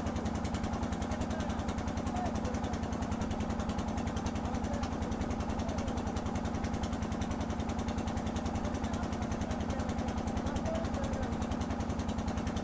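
Boat engine running steadily at constant speed, with a fast, even beat.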